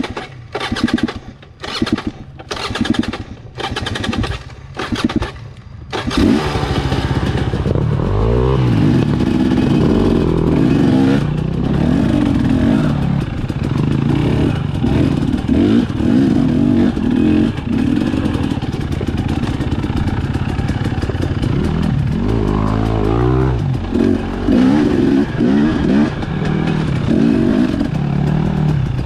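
Husqvarna TE250 single-cylinder two-stroke enduro motorcycle engine. It gives a series of short bursts in the first six seconds, then runs continuously, revving up and down under load on the trail.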